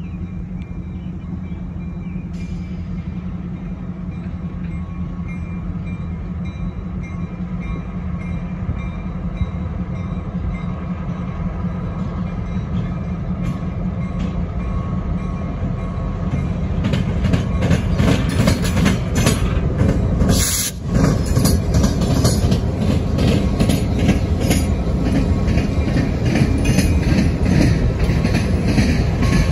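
Diesel locomotives of a short freight train approaching and passing at low speed, the engine rumble growing steadily louder. From a little past halfway, a run of clicks and clacks from the wheels on the rails joins in.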